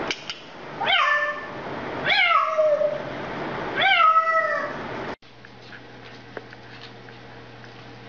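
A cat meowing three times, each meow rising then falling in pitch, about a second apart. About five seconds in the sound cuts off abruptly to a low steady hum with faint ticks.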